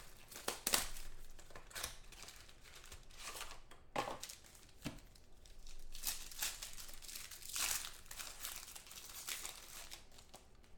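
Trading-card pack wrappers being torn open and crumpled by hand: irregular crinkling and short rips of foil and plastic, the busiest stretch a little past the middle.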